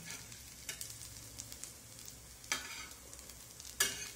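Potato tikkis sizzling in a thin layer of oil on a flat tawa, shallow-frying until the first side turns crisp. A steel spatula clicks against the tawa three times, loudest about two and a half and nearly four seconds in.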